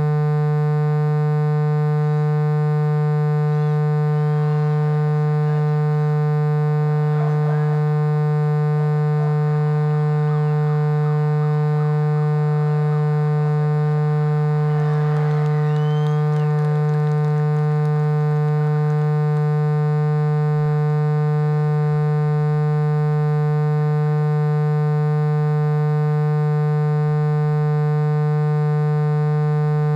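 A steady electrical hum with many overtones, unchanging throughout. Faint shouts from the field or the crowd come through it around seven to nine seconds in and again around fifteen seconds in.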